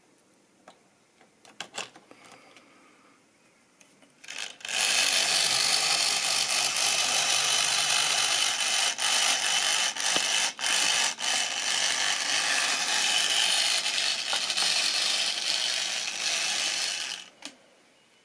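Model railway tank locomotive's electric motor and gears running for about twelve seconds, a steady rough whirr with a few brief drop-outs, then stopping. A few light clicks come just before it starts.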